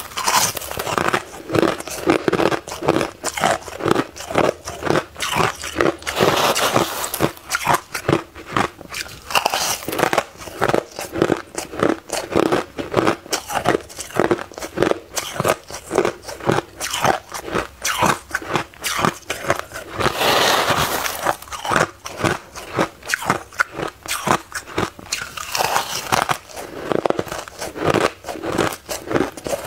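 Close-miked crunching of powdery white freezer-frost ice being bitten and chewed: a dense, continuous run of crisp crunches.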